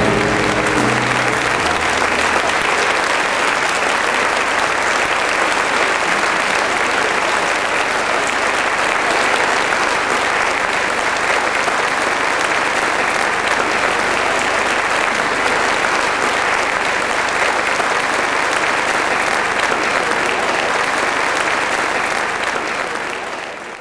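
Studio audience applauding steadily, fading out just before the end.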